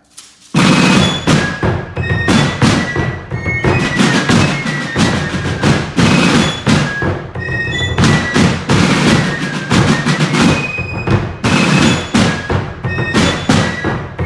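Fife and drum corps playing together: fifes carry a high melody over rope-tension snare drums beating quick, dense strokes. It comes in suddenly about half a second in.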